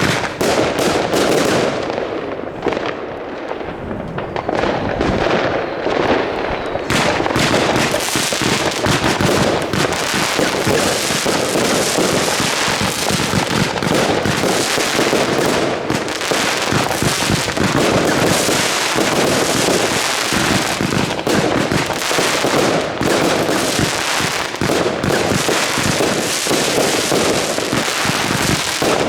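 Consumer fireworks going off in a continuous rapid barrage of bangs and crackling. The barrage thins out for a few seconds about two seconds in, then is dense again.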